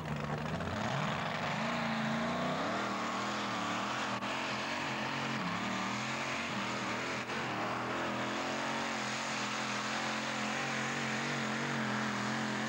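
Modified pulling tractor's engine running hard at high revs under full load as it drags the weight sled. The pitch climbs about one to two seconds in, then wavers up and down.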